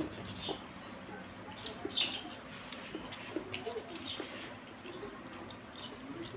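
Small birds chirping: short high chirps, several a second at times, over faint clicks of someone eating.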